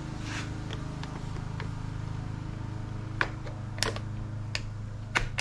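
A few light clicks and taps of plastic and rubber parts being handled as a new rubber intake isolator is fitted to a string trimmer, four sharp ones in the second half, over a steady low hum.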